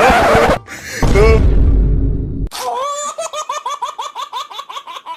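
Edited-in comedy sound effects: a short noisy burst, then a deep rumble, then from about halfway through a high-pitched laughing effect of quick repeated notes, about five a second.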